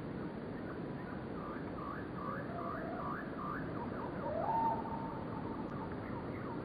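A steady low rush of background noise with a bird calling over it: a run of about six short falling chirps, then a longer note that rises and holds, the loudest moment, about four and a half seconds in.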